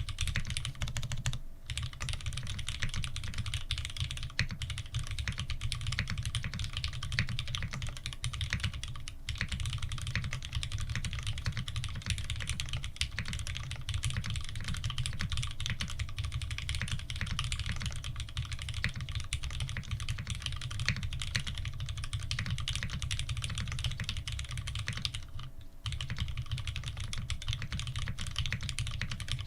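Fast, continuous typing on an F2-84 mechanical keyboard fitted with lubed Cherry Retooled Black linear switches, slow-curve springs and GMK Oblivion keycaps: a dense run of keystrokes with short pauses about nine and twenty-six seconds in.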